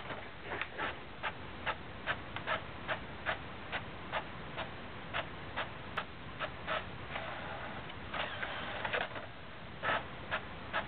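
Inkjet all-in-one printer printing a page: a regular clicking of about two to three clicks a second as the mechanism steps, with a short whir about eight seconds in.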